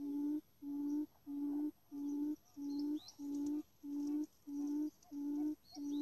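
Low hooting call of a buttonquail lure, repeated evenly at about one and a half hoots a second to draw quail to the trap, with a few short high bird chirps over it.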